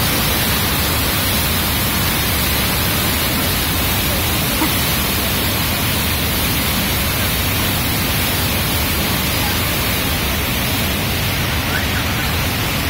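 Steady roar of the Rhine Falls and the churning whitewater in the basin below it, a loud, even rushing noise that does not let up.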